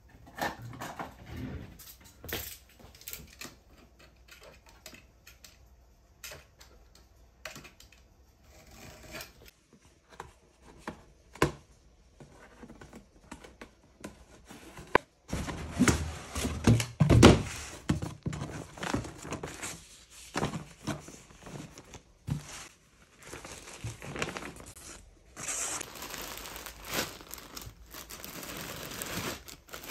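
A cardboard box is knocked about and opened. Packing tape is ripped off with loud tearing about halfway through. Near the end the clear plastic garment bags inside crinkle as they are handled.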